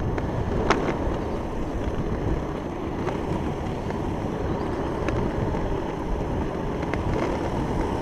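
Steady rumble of small board wheels rolling over rough asphalt, mixed with wind buffeting the microphone, with a few faint clicks.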